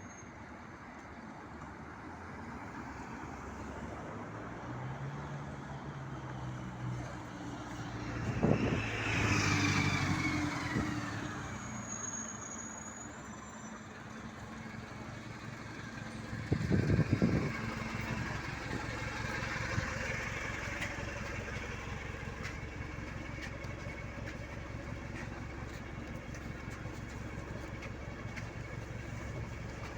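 MAZ-206 diesel city bus driving, heard from inside: steady engine and road noise that builds as it picks up speed, with a falling whine and two loud knocks, the first about eight seconds in and the second near seventeen seconds.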